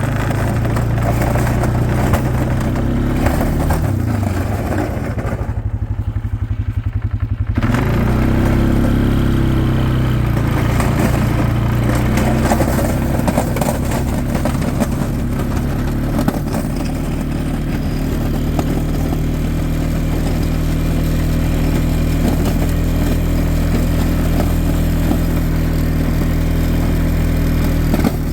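Small ATV engine running under load while pushing snow with a plow blade, revving up and down as it moves. For a couple of seconds about six seconds in it drops to a low, even pulsing idle, then picks up again and runs steadily.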